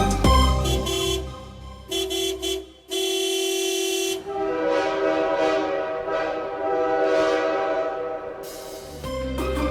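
Background music whose beat drops out after about a second, leaving long held horn-like tones, the loudest from about three to four seconds in, before the beat comes back near the end.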